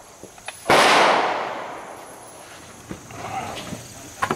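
One rifle shot about a second in, with a long echo that dies away over the next second and a half.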